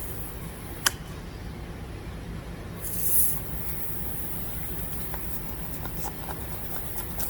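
A sharp single click as the nail is pulled from the truck tire's tread, then a short hiss about three seconds in as the spot is checked for a leak, over a steady low hum.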